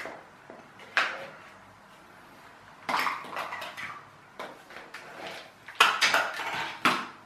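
Hard plastic marble-run track pieces clattering and clicking as they are picked up, knocked against each other and pushed together: a run of sharp knocks with pauses between, busiest and loudest about six seconds in.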